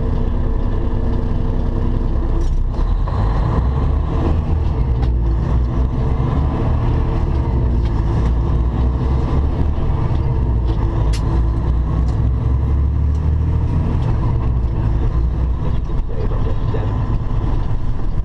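Semi truck's diesel engine running with road rumble, heard inside the cab while driving, with a few short clicks.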